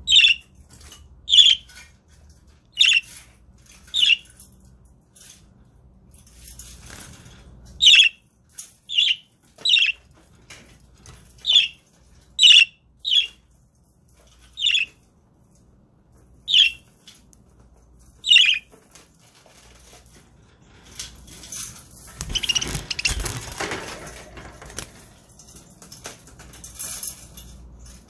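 Budgerigars giving short, sharp chirps, about one a second, for most of the first two-thirds. They are followed by several seconds of rustling and fluttering noise.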